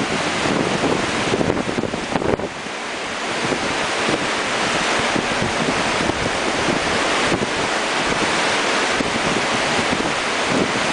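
Heavy tropical downpour hissing steadily on lagoon water, with strong wind gusting across the microphone.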